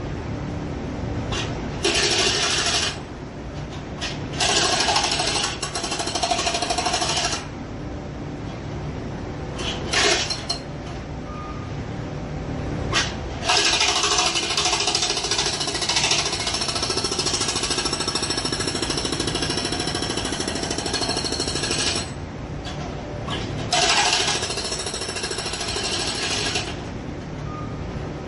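Jackhammer breaking concrete in bursts of a few seconds, with one long run of about eight seconds in the middle and short stabs between. A steady low rumble runs under it throughout.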